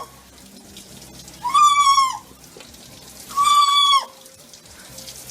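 A parrot calling loudly: two even, held calls, each about two-thirds of a second long, about two seconds apart.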